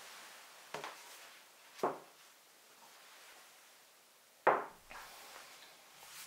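A paperback book and a glass mug being set down on a wooden tabletop: a few short knocks, the loudest about four and a half seconds in, with faint handling between them.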